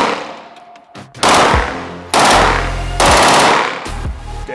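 CZ-75 Full Auto machine pistol firing short bursts of 9mm full-auto fire, one about every second, each dying away in an echoing tail, with a shorter, weaker burst near the end.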